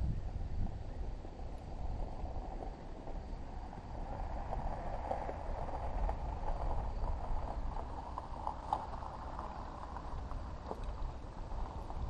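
Goats and sheep moving and feeding close to the microphone: a run of small clicks and rustles, thickest from about a third of the way in, over a steady low rumble of wind on the microphone.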